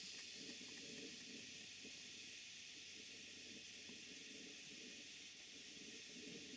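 Faint, steady hiss of steam from a Stuart Major Beam model steam engine running light, with no distinct exhaust beat: the engine is so precise and quiet that its beat is practically inaudible off load.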